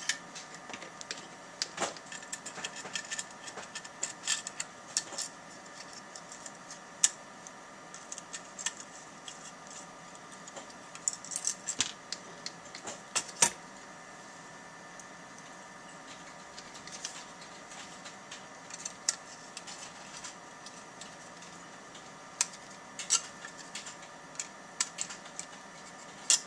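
Scattered small metal clicks and taps of a screwdriver turning out and driving in the two little screws that hold the metal bracket on a PCI wireless card, with the bracket and card being handled, over a faint steady hum.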